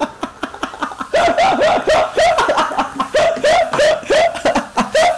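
A man laughing hard: a long, even run of loud 'ha' sounds, about three a second.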